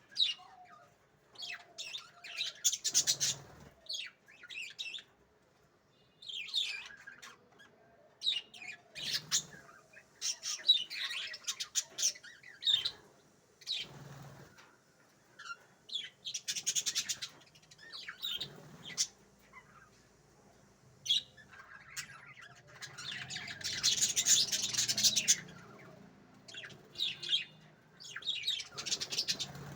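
Small birds chirping and squawking in irregular bursts of rapid high calls, with short quiet gaps between them and a longer, busier run of calls about three quarters of the way through.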